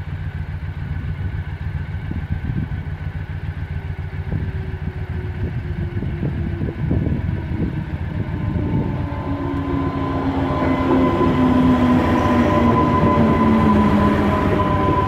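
A Class 230 D-Train diesel-electric multiple unit approaching and passing a level crossing, getting louder from about two-thirds of the way in, with a steady whine and lower tones that drop slightly in pitch. Under it runs a steady low rumble of idling road traffic.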